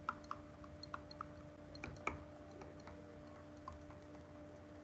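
Faint, irregular light clicks and taps of a stylus writing on a tablet, over a faint steady hum.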